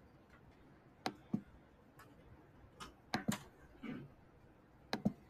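Several sharp clicks from a computer mouse or keyboard, scattered and some in quick pairs, over a quiet room.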